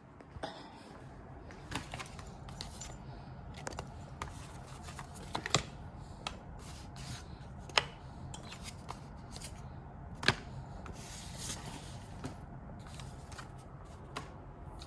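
Scattered light clicks and scrapes of small objects being handled, three of them sharper than the rest, over a low steady hum.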